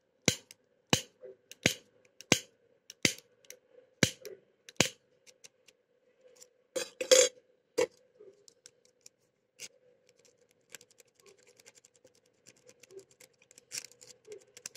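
Metal rake pick being worked in and out of the keyway of an old pin-tumbler padlock under tension: a sharp click about every two-thirds of a second for the first five seconds, then scattered lighter clicks with a louder cluster about seven seconds in. The lock does not open.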